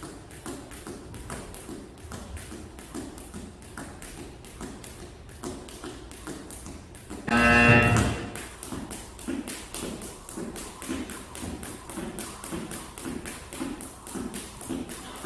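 Speed jump rope slapping the floor in a rapid, even rhythm of several strikes a second. A loud electronic beep of under a second cuts in about halfway through.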